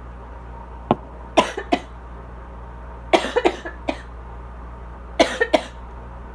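Asthmatic coughing in short fits: a single cough about a second in, then two, a run of several around the middle, and three more near the end. A steady air-conditioner hum runs underneath.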